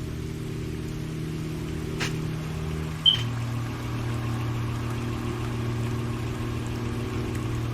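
Truck engine running steadily, its low hum dropping in pitch just after three seconds in. There is a faint click about two seconds in and a short sharp sound at the pitch drop.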